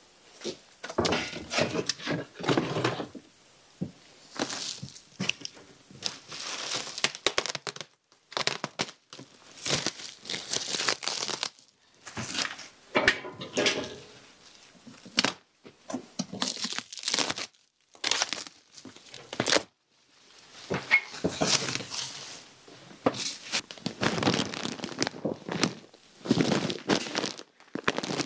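Large plastic sacks being handled and shifted: repeated crinkling and rustling of the plastic in irregular bursts, with a few knocks as they are set down.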